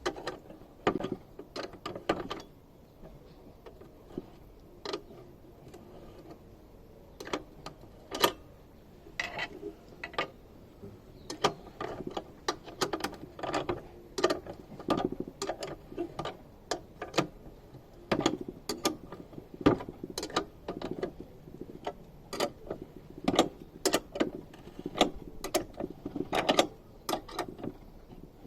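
Spanner tightening a nut onto a bolt: many sharp, irregular metallic clicks and taps in scattered runs.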